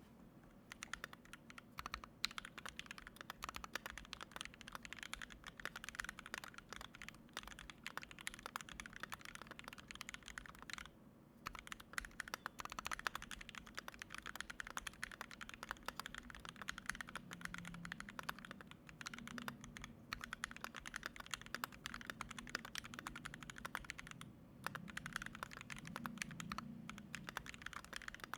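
Fast continuous typing on a KBD67mkII mechanical keyboard with 43 Studio toy switches, a brass plate, GMK keycaps and foam in the case and between PCB and plate, a dense run of key clacks with brief pauses about 11 and 24 seconds in.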